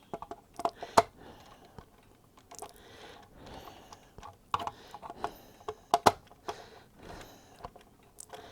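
Scattered small clicks and taps of metal and plastic as ferrule-tipped wire ends are worked into screw-clamp terminals, with sharp clicks about a second in and about six seconds in.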